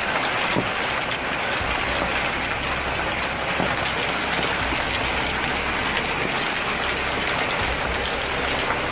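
Heavy hail pelting a corrugated roof and the street, a dense, steady rush of countless small impacts.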